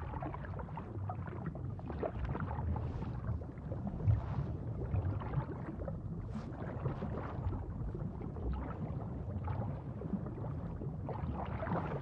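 Water moving with a low, uneven rumble and faint gurgling, as around sharks thrashing in shallow water.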